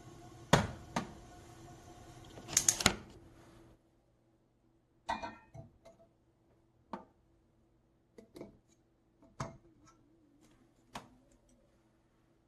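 Water heating to the boil in a glass stovetop kettle, a steady bubbling hiss with a few sharp knocks. After about four seconds the boiling noise cuts off suddenly, leaving scattered clicks and knocks over a faint steady hum.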